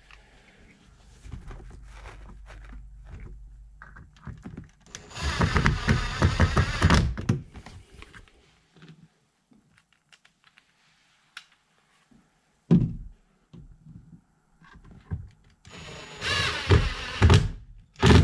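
Cordless Ryobi impact driver hammering screws through a stainless seat hinge into a boat chair, in two bursts of about two seconds each, one about five seconds in and one near the end. There is a single knock in between.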